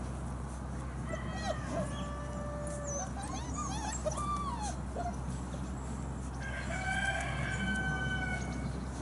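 Drawn-out animal calls: a few held, sliding notes in the first half, then one long steady call of about two seconds near the end, with quick high chirps around the middle.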